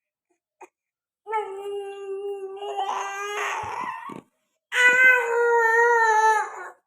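A dog howling: one long, steady howl starting about a second in, then a second, louder howl near the end.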